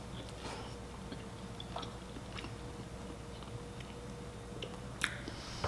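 A person chewing and eating food close to the microphone, with scattered soft mouth clicks and a louder click about five seconds in.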